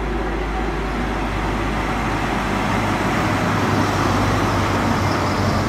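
InterCity 125 high-speed diesel train (Class 43 power car and coaches) passing through a station at speed without stopping: a steady rushing rumble of wheels and engine, growing a little louder about halfway through as the power car goes by close.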